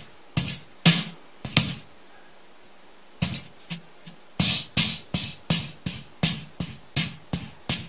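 Drum-machine beat of short, sharp drum hits. The hits stop for about a second near the start, then come back as an even run of about three hits a second.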